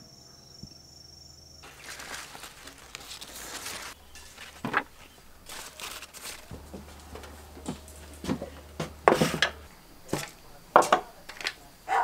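Handling noises: soft rustling, then a series of sharp knocks and clicks as a metal tray and a glass jar with a bamboo lid are set down on a wooden table and the lid is worked off. The loudest clicks come in a cluster near the end.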